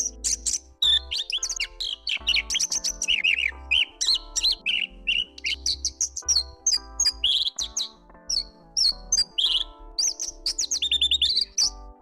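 Horsfield's bush lark (Mirafra javanica) singing a quick, unbroken, varied stream of high chirps, trills and sliding notes, over background music.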